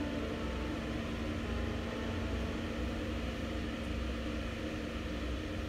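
Steady rumble and hum inside a moving cable-car gondola, with one even tone held above a low drone.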